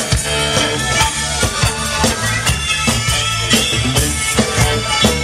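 Live band music played loud through the PA: a drum kit beat under keyboards and bass, with a reedy lead line.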